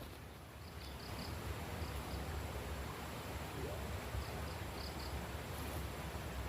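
An insect chirping in short groups of high, quick pulses every second or two, over a steady low rumble.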